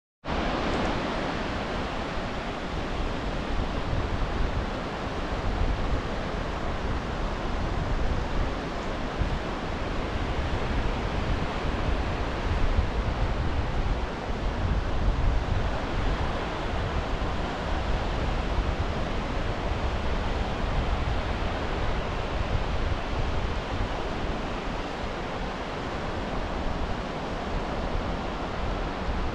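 Small surf washing in along a sandy shore, a steady rushing of waves that swells and eases gently, with some low wind rumble on the microphone.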